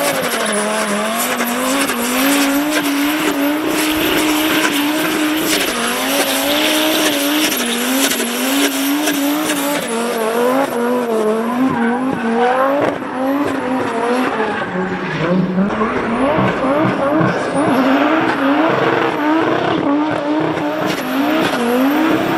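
VW Scirocco drift car's engine held at high revs, its pitch wavering up and down as the throttle is worked through a drift, over the squeal of spinning rear tyres. About fifteen seconds in the revs drop briefly, then climb again.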